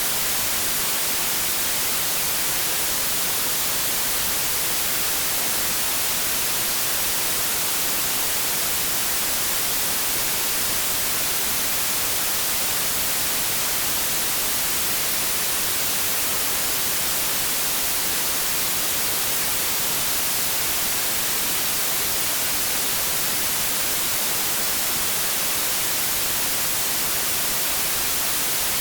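Steady white-noise static: an even, unbroken hiss, strongest in the high range, holding one level throughout.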